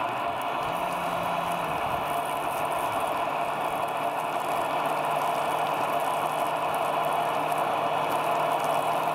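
Electric water pump of a radio-controlled model fire truck running steadily, feeding the jet from its roof water cannon, with a steady low hum under a spraying hiss.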